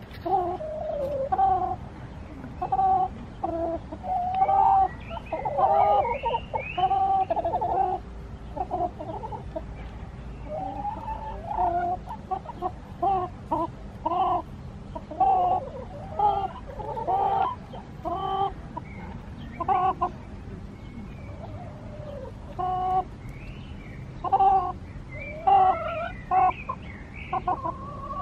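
Several hens clucking in a chicken run: a near-continuous stream of short, repeated clucks with a few longer, drawn-out calls mixed in.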